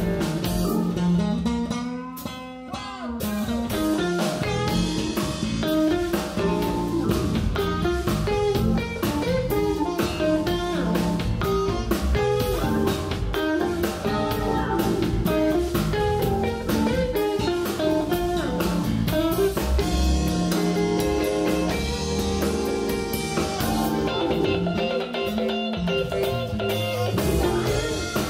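Live band playing a soul-jazz tune: electric guitar, electric bass, keyboard and drum kit together, with a steady drum beat and the guitar to the fore.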